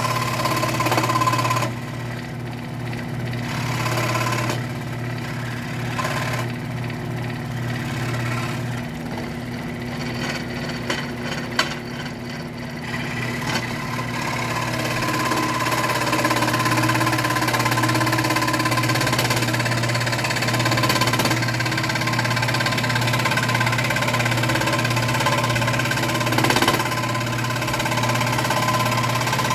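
A WEN scroll saw running, its blade going up and down and cutting through wood. There is a steady motor hum with a rasping cutting noise that varies as the wood is fed, getting louder about halfway through.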